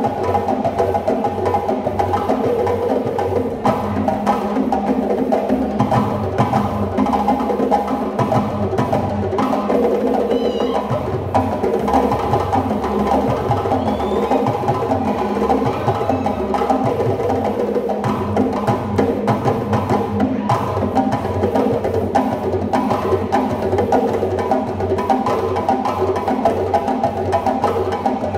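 Percussion-led music with a steady beat.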